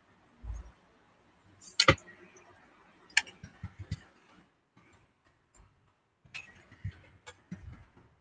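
Irregular sharp clicks and taps, the loudest about two seconds in, mixed with a few short low thumps: small objects being handled close to the microphone.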